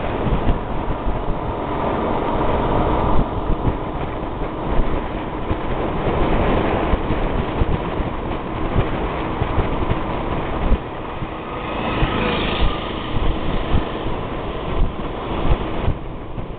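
Wind buffeting the microphone of a camera held on a moving motorbike, over the steady running of the bike's engine and its tyres on the road.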